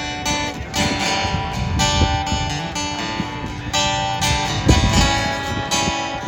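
Acoustic guitar strummed through an instrumental passage of a country song, with no singing.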